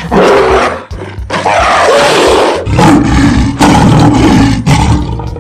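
Animal roar sound effects for a cartoon hippo and tiger: a string of loud, rough roars, each about a second long, with short breaks between them.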